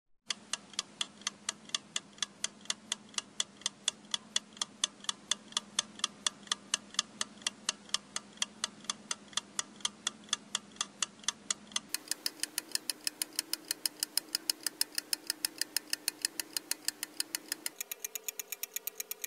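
Steady clock ticking, about four ticks a second, over a low hum that steps up in pitch twice, about twelve seconds in and near the end.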